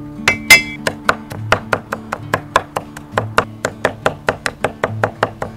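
Cleaver chopping garlic cloves on a wooden chopping board: a rapid, even run of knocks, about four to five a second, with plucked-string music underneath.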